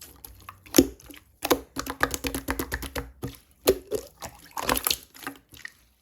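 Firm clear slime being squeezed and pressed by hand, making a run of wet clicks and crackles with a few louder pops.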